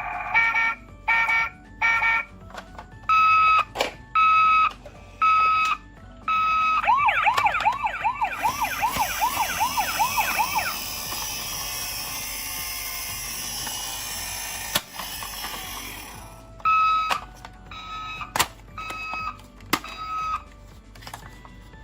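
Electronic siren sound effects from a toy ambulance: short on-off beeping tones, then a fast warbling siren of about three sweeps a second. A steady hiss runs for several seconds after the warble. Then come more beeps, with sharp clicks among them.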